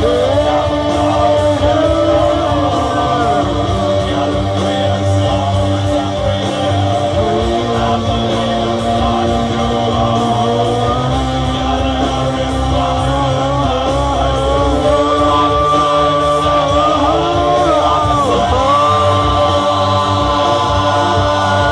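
Rock music: sustained, bending electric guitar notes with a singing voice.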